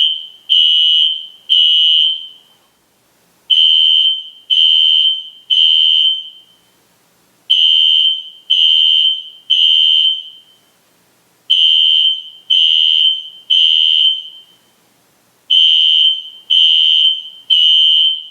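System Sensor SpectrAlert Classic fire alarm horn sounding the temporal-3 evacuation pattern: three short, high-pitched blasts, then a pause, the group repeating about every four seconds.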